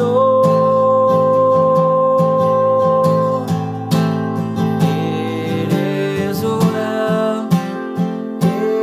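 Acoustic guitar strummed in a steady rhythm, with a man's sung note held for about the first three seconds. After that the guitar plays on alone, moving through chords.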